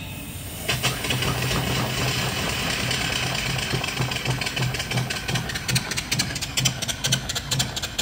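Steam hissing as the supply valve is opened to a 3-inch-bore, 4-inch-stroke steam engine fed from a coal-fired boiler. About a second in the hiss begins, and over the last few seconds the engine picks up a regular beat of exhaust chuffs, several a second, running slowly.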